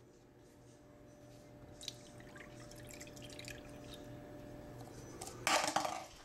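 Milk tipped from a plastic cup into a bowl: faint drips and small taps, then a short louder rush of liquid noise near the end.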